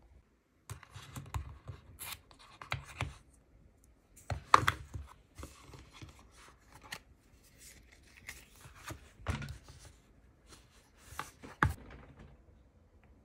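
Handling noises of iPhone packaging: the cardboard box and its paper insert rustling, scraping and tapping in irregular bursts, the loudest about four and a half seconds in.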